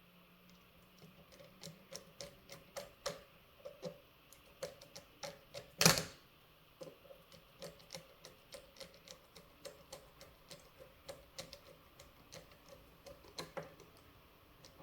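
Small clicks and ticks, several a second, of a screwdriver driving the small screws of an RC crawler loader's track tensioners, with one louder knock about six seconds in.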